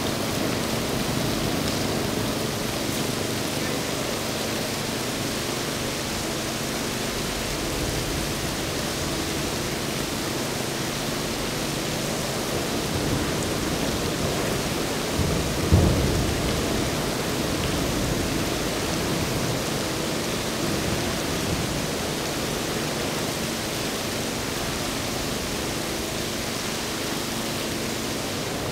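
Steady rain hiss with the low, even hum of an outboard engine idling as a center-console boat moves slowly past. About fifteen seconds in comes one short, loud thump.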